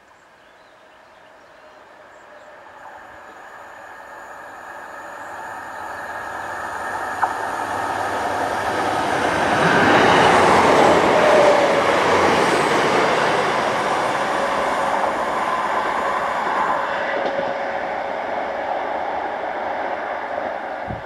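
Northern Class 769 bi-mode multiple unit approaching and passing at speed, its diesel engines droning over wheel and rail noise. It grows steadily louder to a peak about halfway through, then slowly fades as it runs away. A single sharp click sounds a few seconds before it passes.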